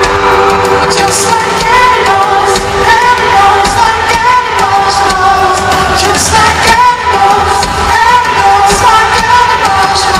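Live pop-rock band performing loud: a male lead vocal sings into a handheld microphone over electric guitar and a steady driving beat.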